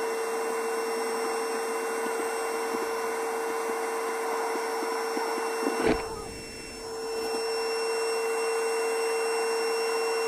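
Small electric blower motor running with a steady hum and whine. Just before halfway there is a single knock, then the sound dips for about a second and builds back up.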